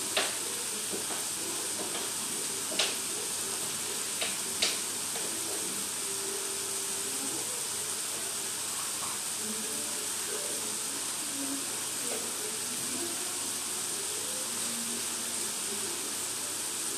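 Hot oil sizzling steadily in a steel wok as chopped ingredients fry, with a few sharp pops in the first five seconds.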